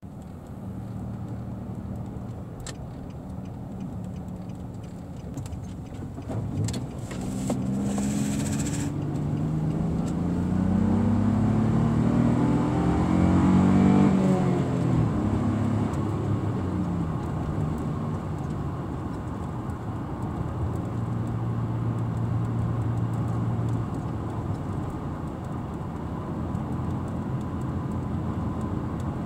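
Nissan Frontier pickup's NISMO aftermarket exhaust heard from inside the cab. The engine runs steadily, then accelerates with the exhaust note rising in pitch and growing louder, loudest about halfway through, before easing back to a steady cruise.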